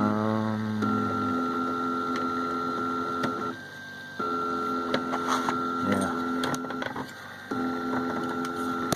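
Home-built 3D printer's stepper motors whining as the print head moves, stopping and starting between moves, with a few light clicks in the middle.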